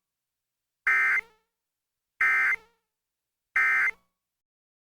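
Emergency Alert System end-of-message (EOM) code: three identical short bursts of buzzing two-tone digital data, each about a third of a second long with about a second of silence between them, marking the end of the alert.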